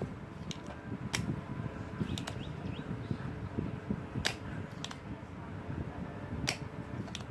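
Desoldering pump snapping as its spring-loaded plunger fires: a sharp click every second or two, the loudest three about two seconds apart, over a low background rumble. It is sucking solder off the pins of a 555 timer IC to free it from the circuit board.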